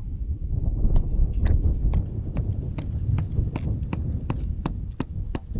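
Strong wind buffeting the microphone with a low rumble, over a quick run of sharp clicks or taps, about two to three a second, from about a second in.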